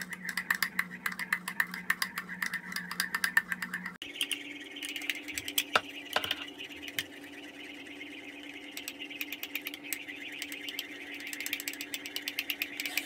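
A metal spoon rattling rapidly against a ceramic mug as coffee mix, sugar and water are whipped by hand into dalgona foam, a fast run of clicks.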